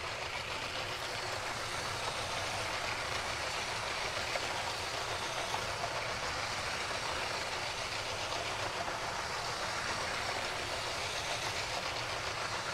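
Two battery-powered LEGO toy trains running together on plastic track: a steady running noise from their small electric motors and wheels.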